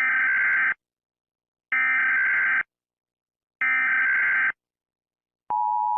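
Emergency Alert System SAME data bursts: three identical harsh, buzzy digital squawks, each just under a second long and spaced about two seconds apart, the end-of-message signal of an emergency broadcast. A steady tone starts about half a second before the end.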